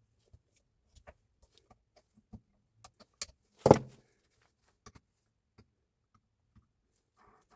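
Scattered light clicks and metallic clinks of tools and parts being handled during a breaker repair, with one loud knock about three and a half seconds in.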